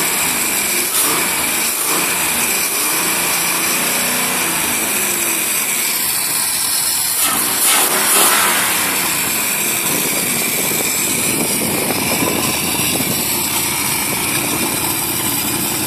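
Marlin Roadster's V8 engine running, its pitch rising and falling in the first few seconds, with a louder rev about eight seconds in.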